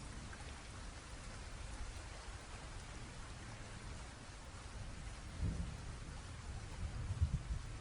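Steady rain falling, an even hiss, with short low rumbles rising out of it about two-thirds of the way through and again near the end.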